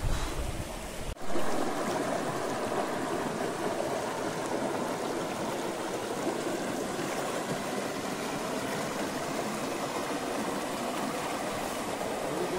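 Shallow rocky river rushing and splashing over boulders in a small cascade: a steady, even rush of water. It starts after a sudden break about a second in.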